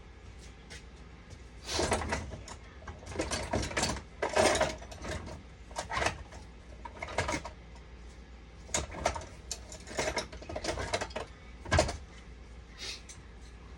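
Irregular knocks, clatter and scraping of objects being handled and set down, with one sharper knock near the end, over a faint steady hum.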